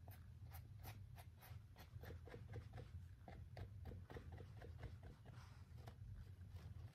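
Faint scratchy strokes of a brush dabbing antique paste onto a papier-mâché hat, about three or four strokes a second, over a low steady hum.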